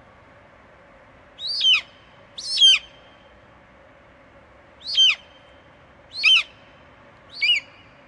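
A hawk calling five times, each call short and falling in pitch, one to two seconds apart.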